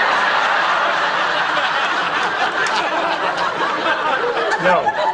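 A studio audience laughing: one long, steady wave of crowd laughter that dies away near the end.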